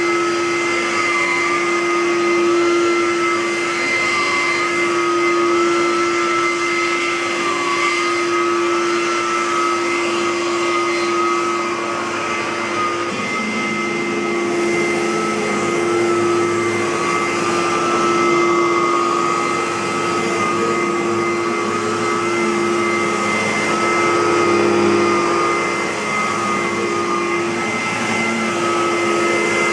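Aerus Lux Guardian (Electrolux U147E) bagged upright vacuum cleaner running continuously: a steady motor hum and rushing airflow, with a higher whine that wavers slightly in pitch and small swells in loudness.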